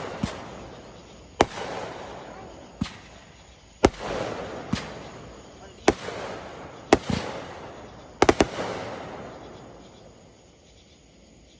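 Consumer fireworks going off in a run of sharp bangs about one a second, each followed by a crackling hiss that dies away. About eight seconds in comes a quick triple bang, then the crackle fades out.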